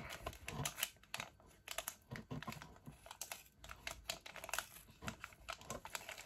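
Shiny plastic blind-bag packet crinkling and tearing in the hands as it is ripped open a little at a time in a zigzag, giving many short, irregular crackles.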